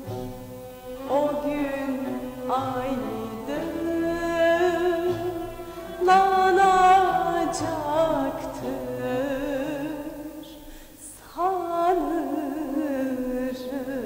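A woman singing a Turkish song with vibrato over instrumental accompaniment, in several phrases; the loudest phrase enters about six seconds in.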